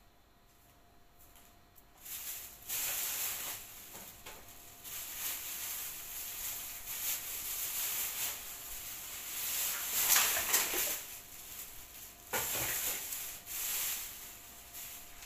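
Rustling and scraping as a kitten wearing a plastic cone collar shifts about on fabric bedding. It starts about two seconds in, comes and goes, and is loudest about ten seconds in, with another brief burst shortly after.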